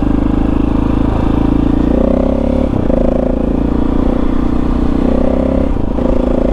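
KTM 640 Adventure R's single-cylinder engine running under way, its note stepping up about two seconds in and briefly breaking twice.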